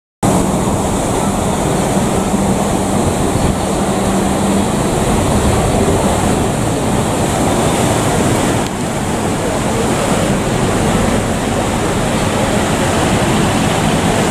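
Sakurajima car ferry berthing, its propellers churning the water: a steady rushing wash with a low, steady engine hum that is strongest in the first few seconds.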